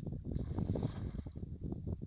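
Cast net landing on the river with a short splashing hiss about half a second in, over wind rumbling on the microphone.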